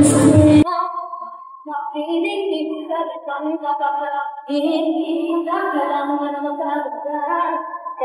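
Loud music and crowd noise cut off abruptly about half a second in, leaving a female voice singing a melody alone, with no instruments behind it.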